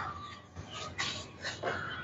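Several short, faint animal calls in a row.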